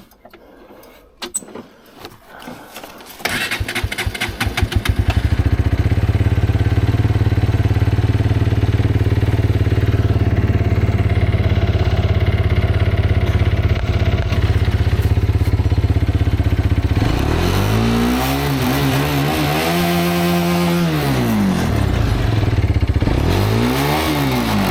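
Road motorcycle engine started about three seconds in, catching and settling into a steady idle. From about two-thirds of the way through it is revved up and down several times, then blipped once more near the end.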